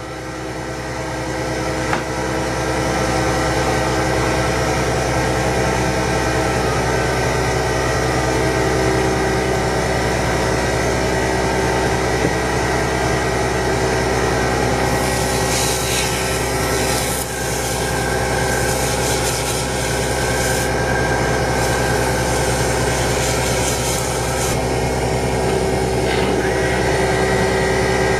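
Small lathe running steadily with a motor whine, getting louder over the first few seconds as it comes up to speed. From about halfway, a turning tool cutting the spinning pen section adds a scratchy, hissing scrape in stretches for roughly ten seconds.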